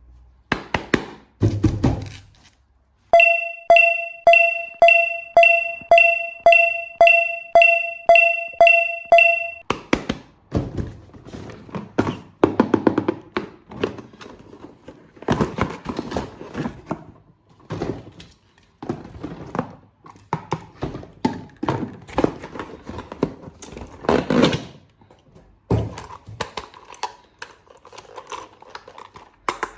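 Toy packaging being handled and opened: a long run of sharp clicks, taps and plastic rustling. Early on, for about six seconds, a short electronic beep-like tone repeats about twice a second.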